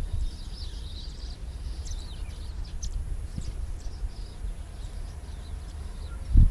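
Low, steady rumble of a distant passenger train, with birds giving short high calls through the first half and a single low thump at the very end.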